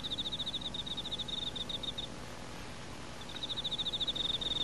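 Cricket chirping: two high, rapid pulsing trills, each about two seconds long, with a pause of about a second between them.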